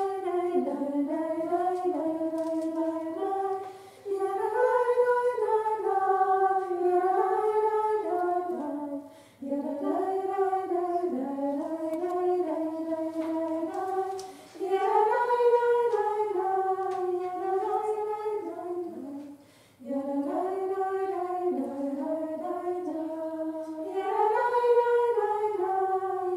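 A woman singing unaccompanied: a slow melody in phrases of about five seconds, each followed by a short breath break.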